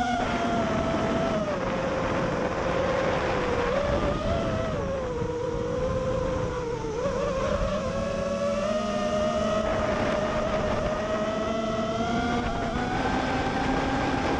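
FPV racing drone's brushless motors whining, the pitch rising and falling as the throttle changes and climbing steadily over the last several seconds, with wind rumbling on the drone's onboard microphone.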